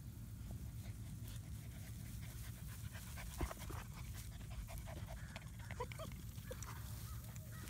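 Six-week-old German Shepherd puppies panting close up, over a steady low rumble. From about three seconds in come many short clicks and rustles, one sharper click among them, as they nose and paw at the person's feet in the grass.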